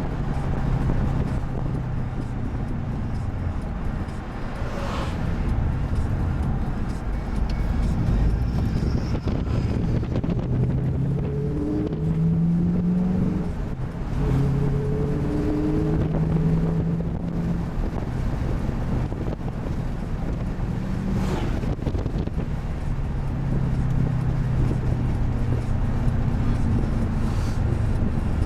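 2005 Pontiac GTO's 6.0-litre LS2 V8 heard from inside the cabin while driving, its Spintech exhaust with Kooks headers giving a steady low drone that steps up and down in pitch as the revs change, over road and wind noise.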